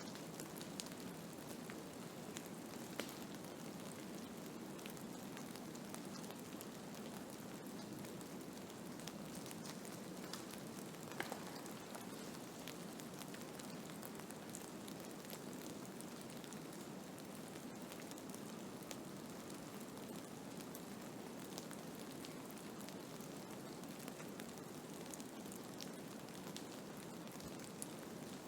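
Snowstorm ambience: a steady hiss of wind-driven snow with scattered faint ticks of grains striking a surface.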